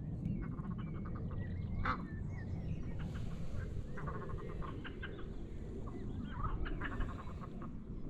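Ducks and other waterbirds calling on the lake: short calls and quick runs of repeated notes throughout, over a steady low rumble.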